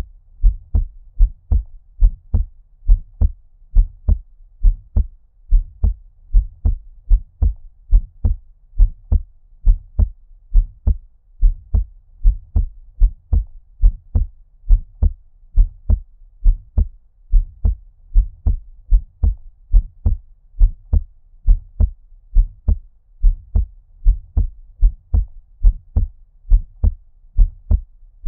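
Heartbeat at a normal resting rate: a steady rhythm of deep, muffled thumps that sound as if heard from underwater.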